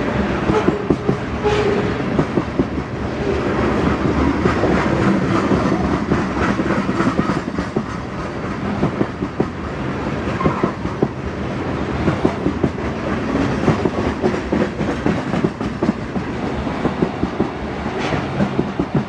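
Coal train's gondola cars rolling past: steel wheels on the rails making a continuous clatter, thick with rapid, irregular sharp clicks.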